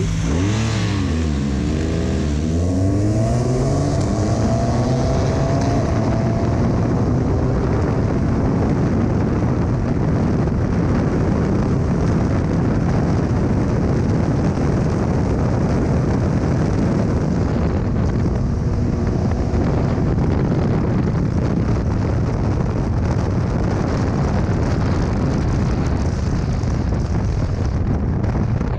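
BMW R 1200 GS Adventure's boxer twin accelerating hard: the engine pitch climbs and drops several times in the first few seconds as it shifts up. After that a loud, steady rush of wind at speed covers the engine running underneath it.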